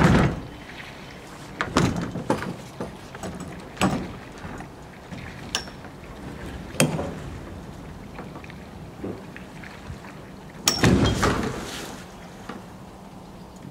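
Kayak knocking and scraping against a sailboat's deck and fittings as it is handled: a string of irregular bumps and rubs, the longest and loudest about eleven seconds in.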